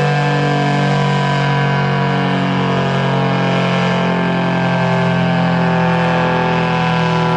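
ACA Cyclone 125 dual-tone rotating tornado siren sounding its steady alert tone at full speed, loud and holding a constant pitch.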